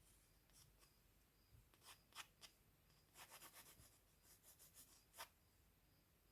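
Faint scratching strokes of a drawing tool on paper: a few single strokes, then quick runs of short back-and-forth strokes in the second half, with one sharper stroke near the end.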